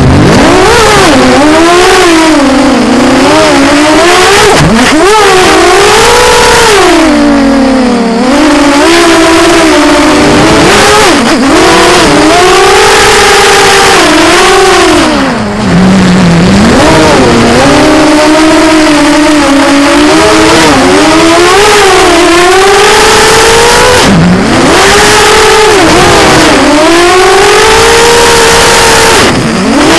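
Electric motor and propeller of a radio-controlled aircraft, heard loud and close from its onboard camera, whining with a pitch that rises and falls constantly as the throttle changes, with deep dips several times.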